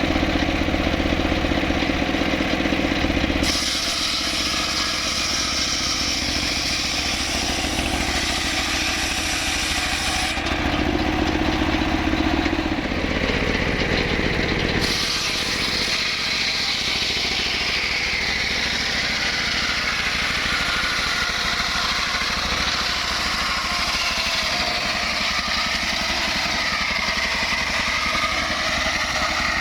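Engine of a log-cutting saw running continuously. Its sound changes abruptly a few times, and its pitch rises and falls near the end as the revs change.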